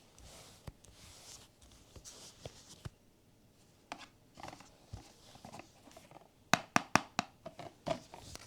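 Hands handling blind-box packaging: soft rustling and scattered light clicks, then a quick run of sharp taps about six and a half seconds in.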